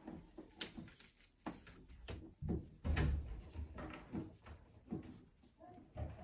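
Irregular rustling and small clicks of hands working pipe cleaners out of curled locs close to the microphone, with a dull thump about three seconds in.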